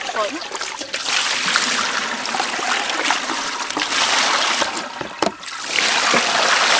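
Water poured from a container over raw fish in a woven bamboo basket, splashing steadily through the fish and the weave as they are rinsed. The pour falters briefly about five seconds in, then picks up again.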